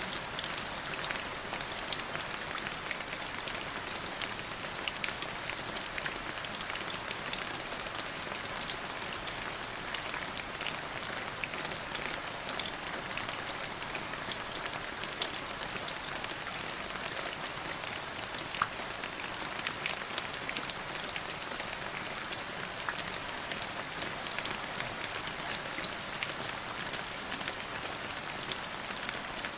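Steady rain falling, with many individual drops ticking sharply through the hiss and one louder drop about two seconds in.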